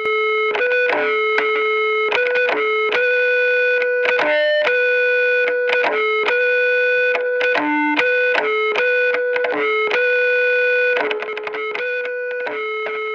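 Solo guitar through effects, picking a rhythmic riff of single notes that keeps coming back to one note. It drops a little in level about eleven seconds in.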